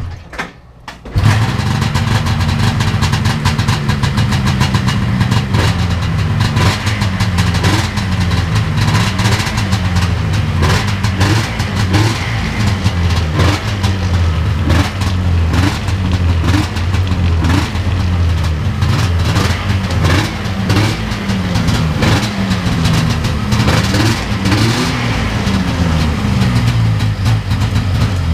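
Vintage Yamaha snowmobile's two-stroke engine on a cold start, catching about a second in and then running with the throttle blipped over and over, the pitch rising and falling about every second and a half.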